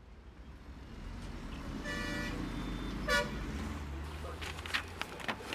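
Road traffic rumbling, with two car horn toots: a longer one about two seconds in and a short one about a second later. A few sharp clicks near the end.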